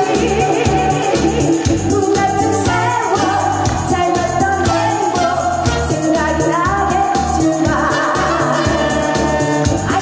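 A trot song performed live: a woman singing into a microphone over a band with a steady beat.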